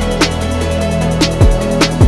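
Electronic background music with a beat: deep kick drums that drop in pitch and sharp snare hits over a held bass line.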